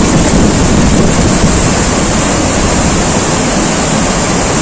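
Loud, steady rush of a mountain river and small waterfall pouring through a narrow rocky gorge.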